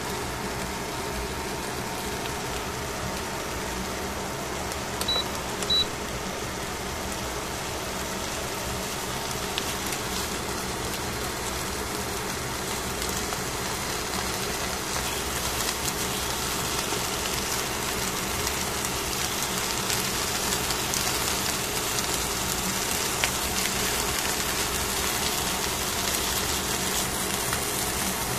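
Fish fillets sizzling on aluminium foil, with a steady hum underneath; the crackle grows brighter in the second half. Two short high beeps come about five seconds in.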